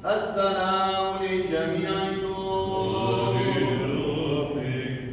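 Byzantine-style liturgical chant sung unaccompanied, long held notes gliding between pitches; a lower voice carries the line from about three seconds in.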